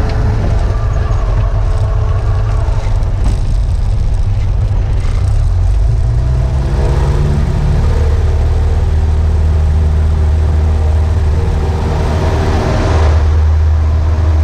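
Light aircraft's piston engine and propeller running at low taxi power, heard inside the cockpit. Its pitch shifts a little about halfway through and it grows louder near the end as the power changes.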